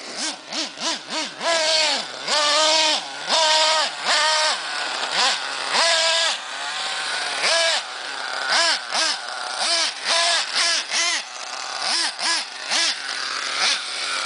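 Small nitro engine of a 1/8-scale RC monster truck, run in repeated short bursts of throttle, its whine rising and falling with each blip.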